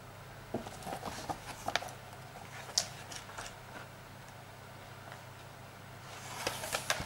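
Pages of a comic album being turned and handled: soft paper rustles and light clicks in the first three seconds, then a short cluster of page rustles near the end.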